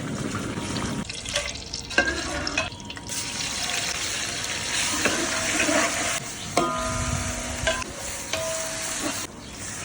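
Biryani masala frying and sizzling in a large metal pot while it is stirred, with a ladle scraping and knocking against the pot now and then.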